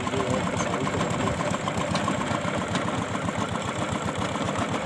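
Engine of a water-well boring rig running steadily with a fast, even pulsing beat.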